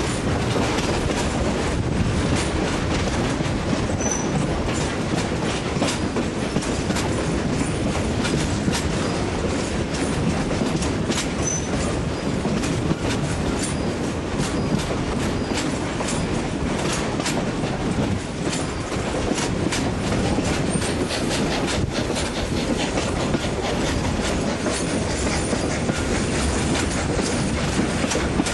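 Steam-hauled passenger train running, heard from a carriage window: a steady rumble and rush with irregular clicking of the wheels on the track.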